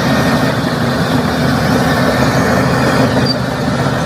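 A bulldozer's heavy engine running steadily, a constant low engine noise with no change in speed.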